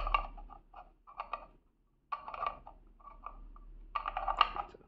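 Light plastic clicks and rattles as a plastic wall-mount bracket is handled and pressed onto the back of a round plastic Ecowitt GW2000 weather-station hub. They come in a few short clusters with brief quiet gaps between.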